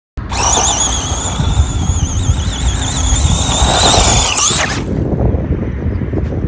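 A high, wavering squeal over a low rumble. The squeal stops about four and a half seconds in, and the rumble carries on.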